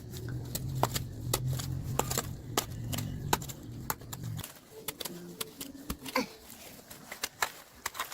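Irregular sharp taps and knocks, a few a second, over a low hum that cuts off about halfway through.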